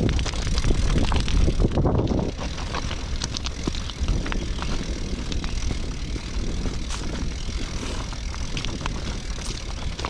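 Footsteps crunching on gravel track ballast, with wind buffeting the microphone in a strong rumble, heaviest in the first couple of seconds.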